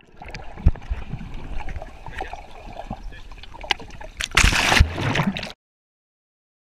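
Pool water sloshing and splashing around a GoPro at the surface, with low thumps and a loud rush of splashing about four and a half seconds in. The sound cuts off abruptly about a second before the end.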